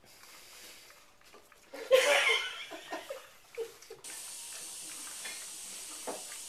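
A short burst of laughter about two seconds in. From about four seconds in, a steady hiss with an occasional clink of a French bulldog puppy eating from a stainless steel bowl.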